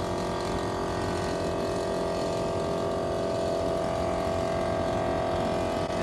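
Homemade forced-air furnace burner running: a steady rumble from the flame with a steady mechanical hum over it from the air compressor blowing air into the burner.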